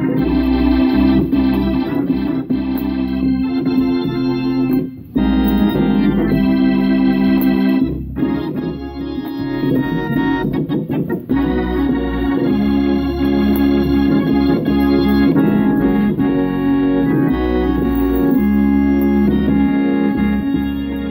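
Gospel organ playing full held chords over a deep bass line, with the chords changing every second or two and brief breaks between phrases.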